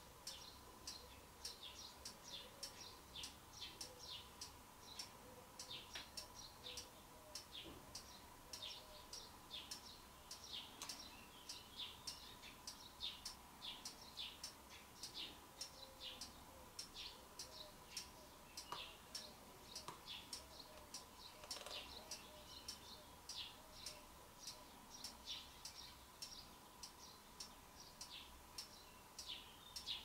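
Faint bird chirping: quick, short, falling chirps repeating several times a second, over a steady faint whine.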